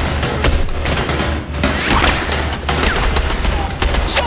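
Rapid, overlapping gunfire from several guns in a film firefight, shots coming every fraction of a second, over a low steady rumble.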